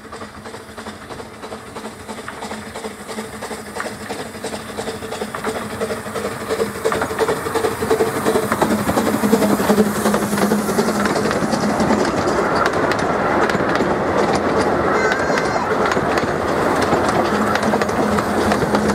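Narrow-gauge steam train approaching and passing close by, its wheels clicking over the rail joints, with a hiss of steam. It grows steadily louder through the first half as it nears, then stays loud as the carriages and locomotive go past.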